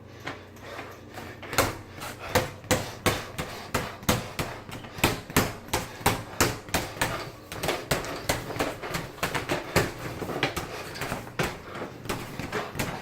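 A long run of sharp knocks or hits, about two to three a second and unevenly spaced. They are loudest for the first seven seconds or so, then softer and closer together.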